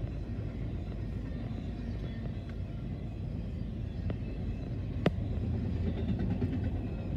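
Intermodal freight train of double-stacked containers and trailers rolling past: a steady low rumble and rattle of the cars on the rails, heard from a parked car, with a single sharp click about five seconds in.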